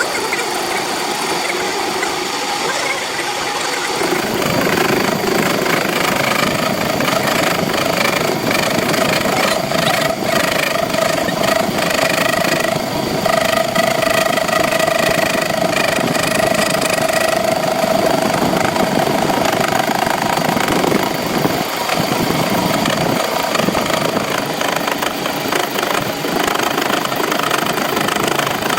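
Metal lathe running while machining a steel shaft: a steady machine noise, with a held tone for several seconds in the middle.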